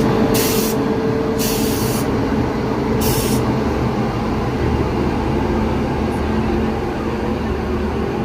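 Indian Railways electric locomotive running with a steady rumble and hum, with three short bursts of air hiss in the first three and a half seconds.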